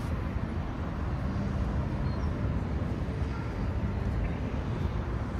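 Steady city traffic noise from cars on a wide road: a low, even rumble with no single vehicle standing out.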